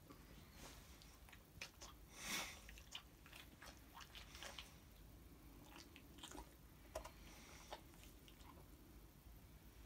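Faint, scattered wet mouth clicks and lip-smacking from a drowsy Great Pyrenees as it settles its head down, with one short breathy sound about two seconds in.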